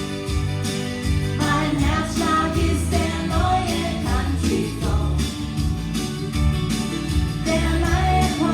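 Country song played by a band with a vocal line over a steady beat and a prominent bass.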